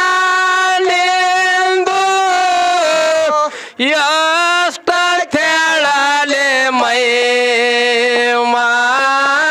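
A man singing a Kannada dollina pada (folk devotional song) into a microphone, holding long drawn-out notes. His pitch drops and slides about halfway through, with short breaks for breath.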